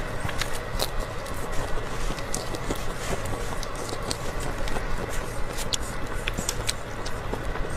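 Close-up eating sounds through a clip-on microphone: chewing, with many small sharp clicks and crackles scattered over a steady background noise.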